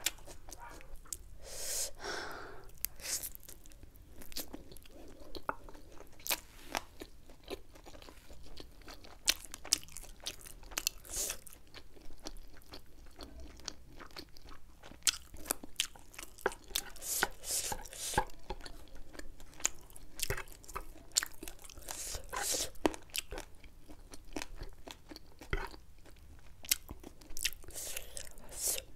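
Close-miked eating of sauced chilli chicken wings and chowmein: wet chewing, biting and crunching, with many irregular sharp mouth clicks and smacks.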